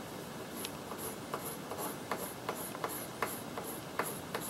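Colored pencil scratching on paper, shading back and forth in short strokes, about two or three a second.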